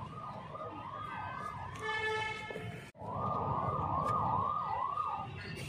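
A siren in fast yelp, its pitch rising and falling a little over twice a second, over a low background murmur. A held horn-like tone sounds briefly about two seconds in. The sound drops out sharply for an instant just before the three-second mark, then the siren returns louder.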